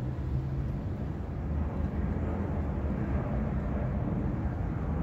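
A steady low rumble of distant engine noise with a faint, even hum, with no tool strikes or clicks.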